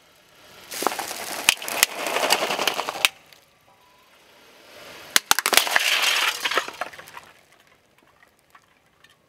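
Car tyre rolling over and crushing a giant Chupa Chups lollipop in its plastic wrapping: crackling and crunching of plastic and candy with sharp cracks, heard twice, each time for about two seconds.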